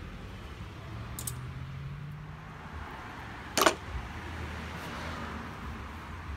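Handling noise from a plastic power steering fluid bottle and funnel being readied. There is one sharp clack about halfway through, over faint rustling and a low hum.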